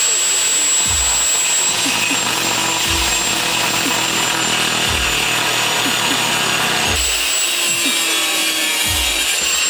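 Electric angle grinder with a thin cut-off disc cutting through a steel angle bar: a steady high-pitched whine over the hiss of the disc grinding metal.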